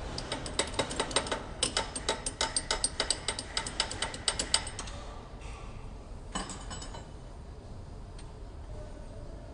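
Ratchet wrench clicking rapidly as it turns a bolt on a paper cup machine's mold assembly, for about five seconds, followed by a single metallic clank about six seconds in.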